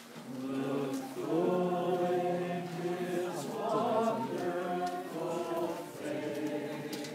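A congregation singing a hymn together, several voices holding long drawn-out notes.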